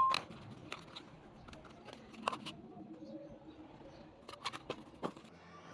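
Scattered light clicks and taps from objects being handled, at uneven intervals. They open with one louder short sound that carries a brief tone, and bunch together near the end.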